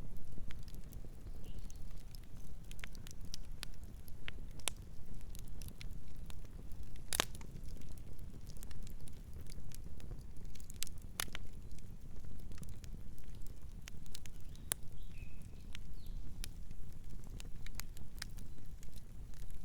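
Wood campfire crackling: irregular sharp snaps and pops over a steady low rumble, with one loud pop about seven seconds in.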